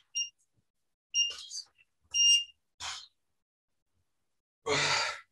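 Digital interval timer's countdown beeps: two short high beeps a second apart, then a longer beep marking the end of the interval. Near the end comes a loud rush of noise lasting about half a second.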